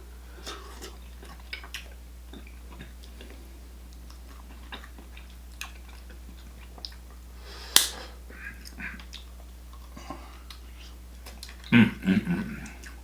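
Close-miked chewing and mouth sounds of someone eating a spicy Cajun seafood boil, with scattered wet smacks and clicks. There is one sharp snap about eight seconds in, and a louder burst of sound near the end.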